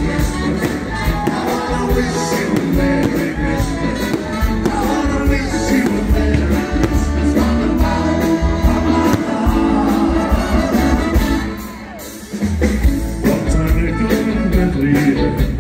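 Live band playing with a singer, a steady beat under the vocals. The music drops briefly about twelve seconds in, then comes back.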